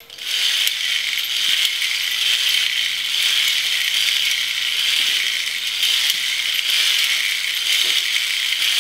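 Two push-action Sparkle Wheel spinner toys being pumped at the base, their plastic ratchet-and-gear mechanisms whirring and rattling continuously as the disks spin.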